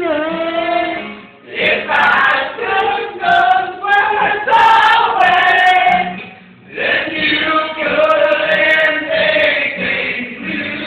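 Men and women singing together in a group, with long held notes and two short breaks about a second and a half and six and a half seconds in.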